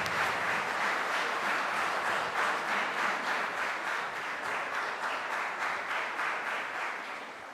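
Audience applauding, many hands clapping at once; the clapping dies down near the end.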